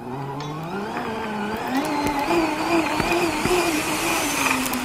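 Taiga Atlas electric snowmobile accelerating at full throttle: the electric drive's whine rises in pitch over the first two seconds, then holds high with a slight waver and eases a little near the end, over growing wind and track noise.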